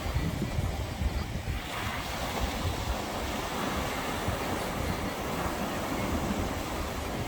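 Ocean waves breaking against rocks, a wash of surf swelling from about two seconds in. Wind buffets the microphone with a steady low rumble.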